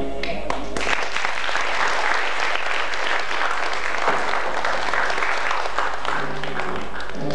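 Audience applauding as a song ends: the music cuts off about a second in and clapping fills the rest, with new music starting faintly near the end.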